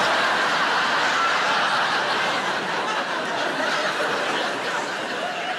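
A large theatre audience laughing together: a dense, sustained wave of laughter that eases slightly near the end.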